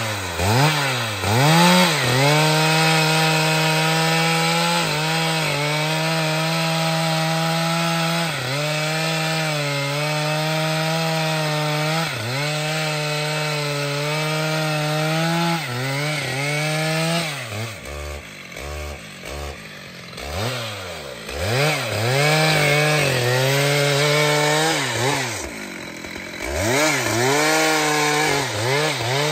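Stihl MS 881 two-stroke chainsaw cutting through a rain tree trunk, held at full throttle under load at a steady pitch with brief dips. About two-thirds in it drops back and is blipped several times, then bites into the wood again to the end.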